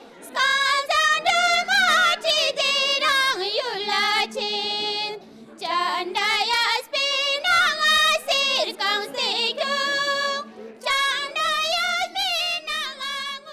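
A high singing voice with wavering held notes and quick ornaments, sung in phrases with a short pause about five seconds in, over a faint steady low drone.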